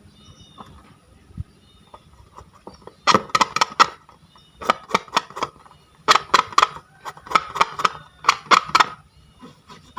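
Slime being squeezed and pressed by hand, giving five runs of quick sharp clicking, popping sounds, each a burst of four to six pops, from about three seconds in to near the end.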